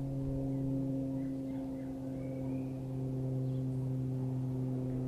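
A steady low hum at one unchanging pitch with several overtones, and a few faint short chirps above it in the middle.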